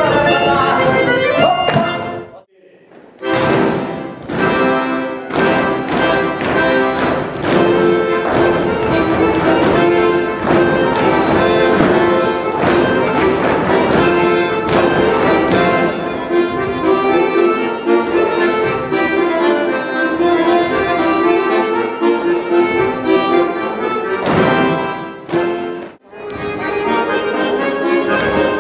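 Accordion playing a folk dance tune with a steady beat. It breaks off briefly about two seconds in and dips again near the end.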